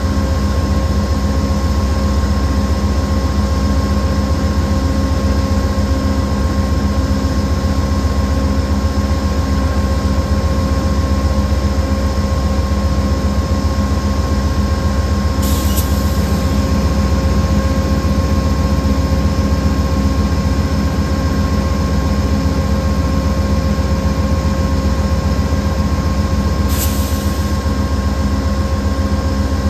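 Diesel locomotive engine running steadily: a heavy low rumble with a steady hum of tones above it, and two short high clicks, about fifteen and twenty-seven seconds in.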